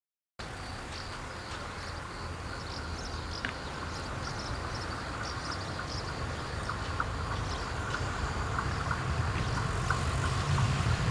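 A regional train approaching along the line, its low rumble growing steadily louder. Faint high chirping runs above it.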